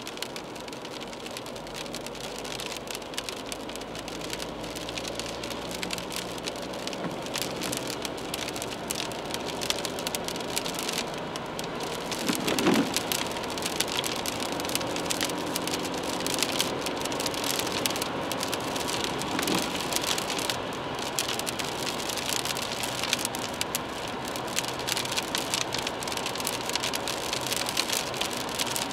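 Inside a BMW 320d's cabin on a wet road in the rain: raindrops hitting the windscreen and roof over tyre hiss and the hum of its four-cylinder diesel, growing louder as the car picks up speed. One brief thump about halfway through.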